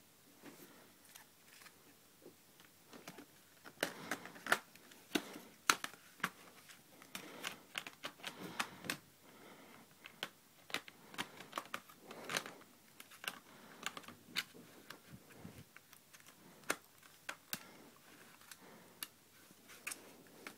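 Typing on a netbook keyboard: irregular key clicks, a few at first, then a busy run of typing from about four seconds in, thinning out again in the second half.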